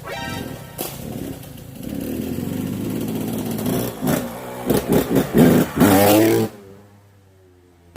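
Yamaha YZ125's 125cc two-stroke single-cylinder engine running and revved in a string of quick blips, each rising in pitch, then dropping off abruptly about six and a half seconds in.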